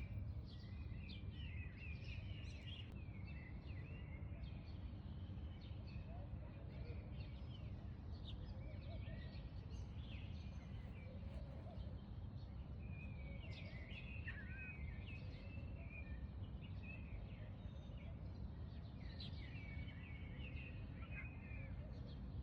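Small birds chirping and twittering over and over, several calls overlapping, above a steady low background rumble.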